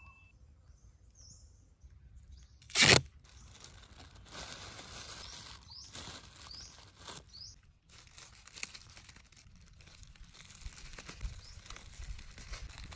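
Green cloth tape ripped off the roll in one short, loud tear about three seconds in, followed by quieter rustling and crinkling as the tape and a thin plastic bag are handled. A few short bird chirps sound in between.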